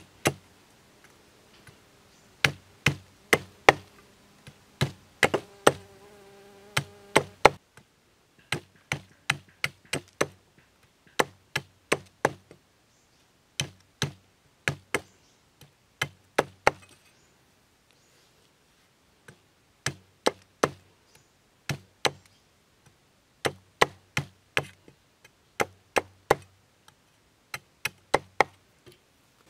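Machete chopping a short wooden stick against a log, cutting off small chunks: a string of sharp chops, often about two a second, with a pause of about two seconds past the middle.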